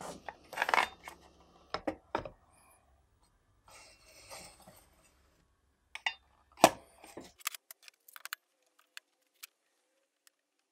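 Handling noises of a circular saw and its plywood jig: a short scrape near the start, then scattered knocks and clicks, with one sharp knock about two-thirds of the way in. The saw is not running.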